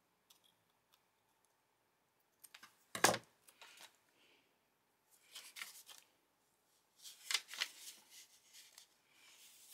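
Scissors cutting paper: a sharp snip about three seconds in, then paper rustling and handling in short bursts.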